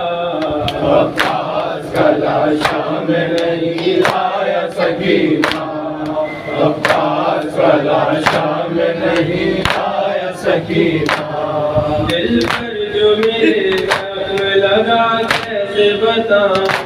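Men's voices chanting an Urdu noha (a mourning lament), with a group joining in chorus, over a steady beat of palms slapping on chests (matam), roughly one to two slaps a second.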